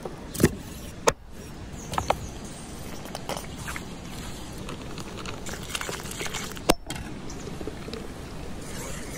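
Food-prep handling sounds: raw chicken wings set down on a wooden cutting board with a few sharp knocks, then hands mixing marinated wings in a pan. Near the end, liquid is poured into batter.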